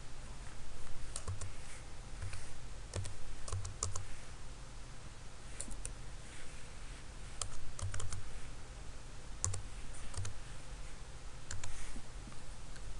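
Computer keyboard keys clicking in short, irregular runs as a number is typed. A steady low hum runs underneath.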